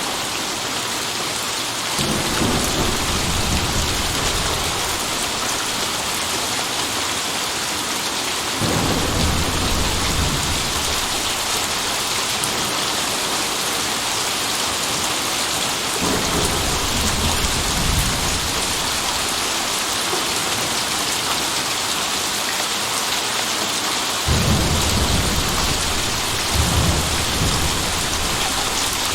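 Steady rain falling, with low rumbles of thunder rolling in every several seconds, five in all, each starting suddenly and lasting a few seconds.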